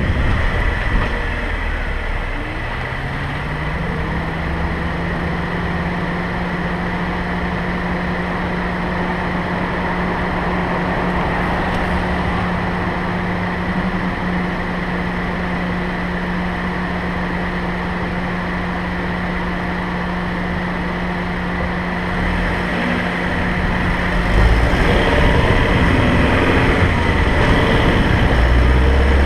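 A car driving on the road: its engine note rises about two seconds in as it speeds up, then holds steady at cruising speed over constant road and wind noise. Near the end a louder low rumble sets in.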